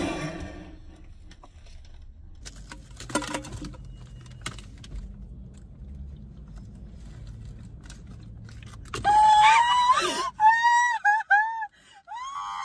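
Two women laughing hysterically. After a quiet stretch with a brief rustle, a long high-pitched squealing laugh starts about nine seconds in and breaks into short squeaky gasps.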